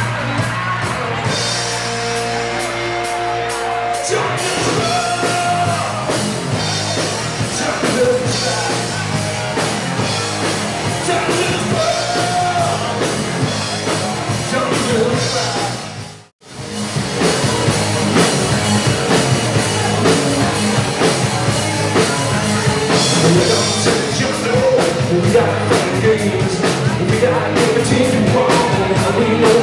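Rock band playing live, with singing over guitars and drum kit, loud. The sound cuts out completely for a moment about halfway through, then the band is heard again.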